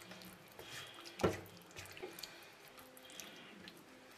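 Silicone spatula stirring thick meat and tomato sauce in a pan: wet squelching with small scrapes and clicks, and one louder knock about a second in.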